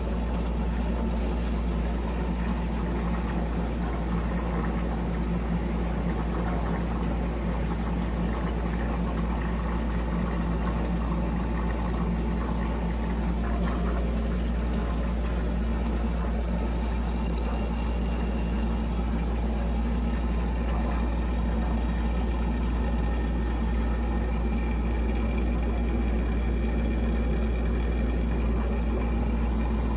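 Hydroponic watering pump running with a steady low hum, water flowing into the microgreen trays as the automated irrigation cycle starts up.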